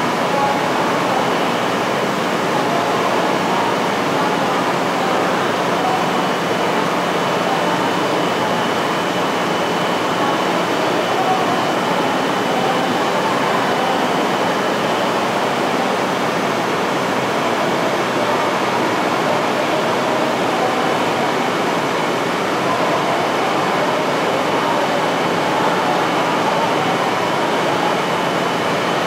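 Steady rushing noise on a Shinkansen station platform, with an E5 series Shinkansen train standing beside it; the level stays even with no passing or braking, and a faint thin whistle-like tone sits over the hiss.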